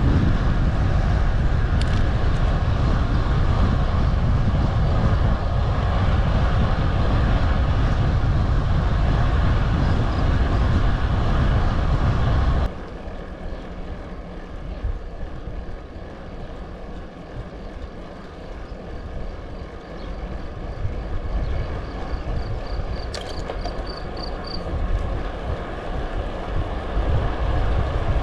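Wind rushing and buffeting over the microphone of a moving bike, heavy and steady, dropping abruptly about halfway through to a quieter rush that gradually builds again toward the end.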